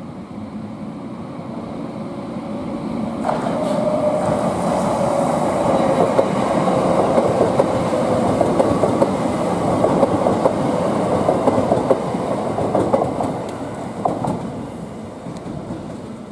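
A London Overground Class 378 electric train passes close by, its wheels clattering rapidly over the rail joints, with a slightly falling whine. The noise swells about three seconds in and fades near the end.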